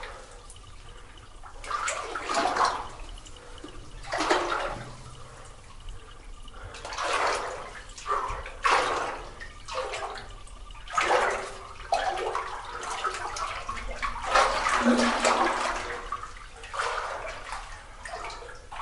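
A person wading through cold, knee-deep water in a flooded mine tunnel: each stride sloshes and splashes, with a surge of water noise every second or two.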